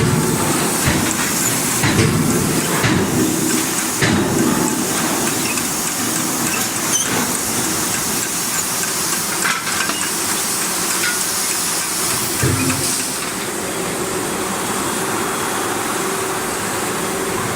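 CNC hydraulic closed-die forging hammer working on excavator track chain links: sharp blows at uneven intervals, heaviest in the first few seconds, over a steady hissing noise.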